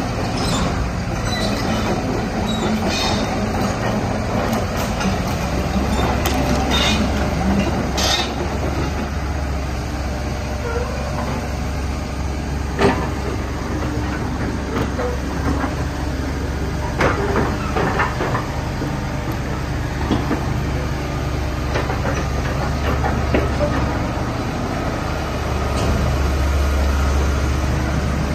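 Komatsu PC128US-2 excavator's diesel engine running with a steady low drone that grows louder about five seconds in and again near the end, with a few sharp metallic clanks.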